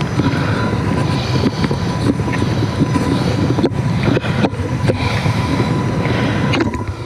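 Mountain bike rolling over rough trail: a steady rumble with irregular rattles and clicks from the bike and camera being jostled.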